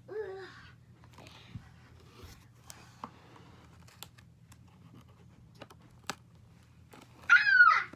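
Scissors cutting into a cardboard toy box: scratchy rasping with a few sharp, scattered clicks of the blades. A child's short voiced sound comes right at the start, and a louder, higher one with a bending pitch comes near the end.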